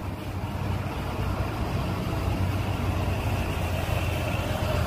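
Diesel engine of a double-decker coach bus running as the bus pulls away and drives past, a steady low hum with road and engine noise growing slightly louder.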